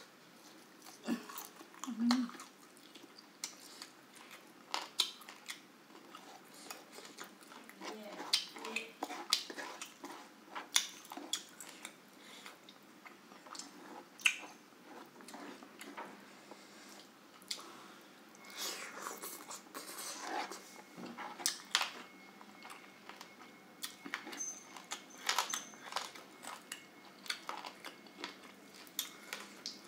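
Close-up eating sounds of someone chewing grilled chicken: irregular wet smacks and short clicks, all the way through. The chicken is tough.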